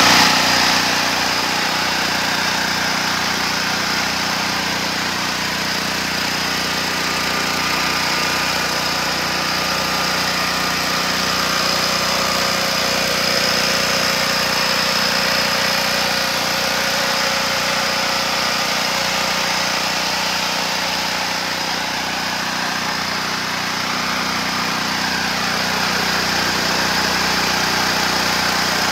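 Apollo AEG8000XE gasoline generator's engine running steadily at an even speed, with a thin high whine over the engine note.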